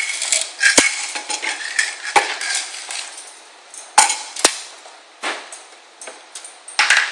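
Small metal screws clinking and rattling as they are sorted through by hand, in quick irregular clicks that thin out after the first few seconds, with a few sharper clicks near the end.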